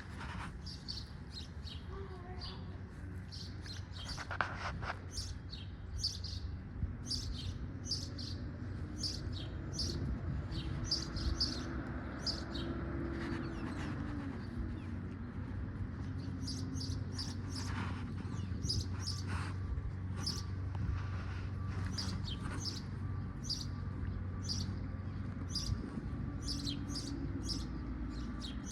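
Small birds chirping, many short high chirps repeating over and over, over a steady low rumble.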